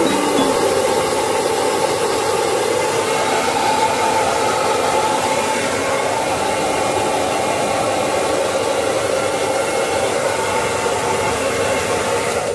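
Hand-held hair dryer running steadily as it blow-dries a small dog's wet coat after a bath: a loud, even rush of air with a steady motor hum.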